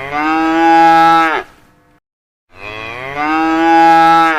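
Cow mooing twice. Each moo is long and drawn out, rising in pitch at the start and then holding steady. The second ends abruptly.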